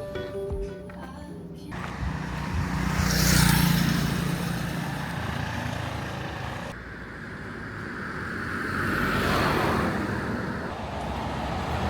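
Street traffic: motor vehicles running past, one swelling and fading about three seconds in and another building around nine seconds in.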